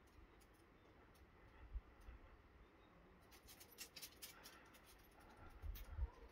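Near silence with faint scratching and clicking, busier in the second half, and a few soft low thumps.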